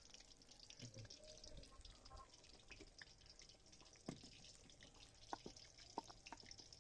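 Faint sizzle of battered capsicum slices frying in hot ghee. From about four seconds in, a metal spoon clicks against the bowl several times while stirring pepper pieces through wet gram-flour batter.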